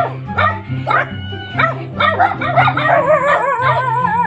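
Dog barks repeating about twice a second over background music with a stepping bass line. About three seconds in, wavering howl-like tones join.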